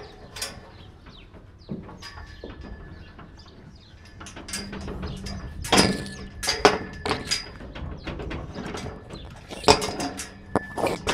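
Steel tube livestock gate rattling and clanking as it is pulled shut and fastened with its chain latch, with a run of metal clicks and a couple of loud ringing clanks, one midway and one near the end.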